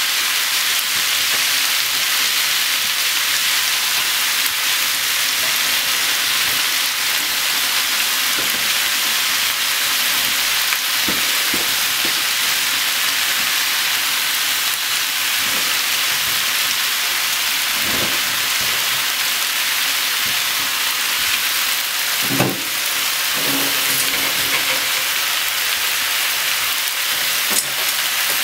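Sliced onions sizzling steadily in a frying pan while eggplant pieces are dropped in by hand, with a few brief thuds as pieces land in the pan.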